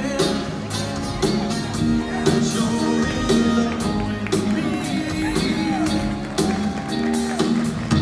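Music with a steady drum beat and sustained bass notes.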